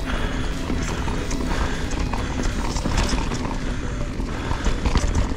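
Mountain bike, a Canyon Strive, clattering over a rough dirt trail: dense knocks and rattles from tyres hitting rocks, chain slap and the frame. Heavy wind rumble on the GoPro's microphone underneath.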